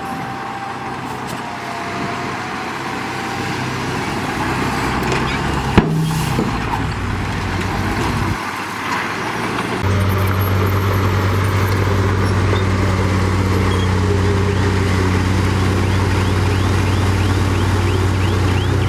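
Diesel engine of heavy earthmoving machinery running, with one sharp knock about six seconds in. From about ten seconds in, a deep, steady engine drone comes in louder and holds.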